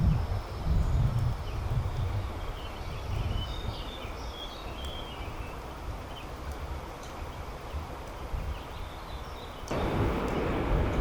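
Outdoor riverbank ambience: small birds chirping sporadically over wind rumble on the microphone. Just before the end the hiss of noise jumps up suddenly and stays louder.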